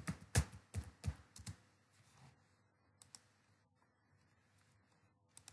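Typing on a computer keyboard: a quick run of keystrokes in the first second and a half, then two more clicks about three seconds in.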